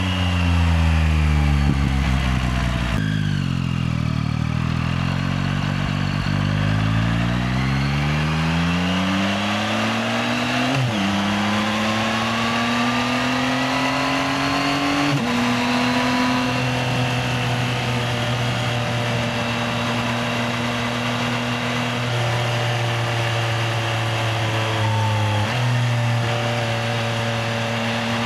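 Yamaha XSR900's inline three-cylinder engine on the move: it winds down off the throttle for the first few seconds, then accelerates with two quick upshifts, each a sudden drop in engine pitch, and settles into steady cruising with a brief dip in revs near the end.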